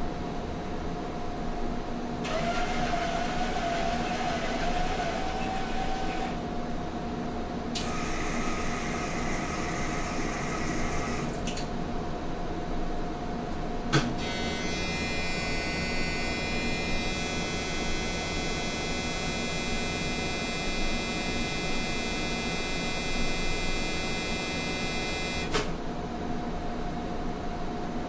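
Varian Clinac 6EX medical linear accelerator running over a steady electrical hum: two short whirring spells of a few seconds each, then a click and a steady high-pitched electric buzz of many tones lasting about eleven seconds that cuts off suddenly, the sound of the treatment beam being on.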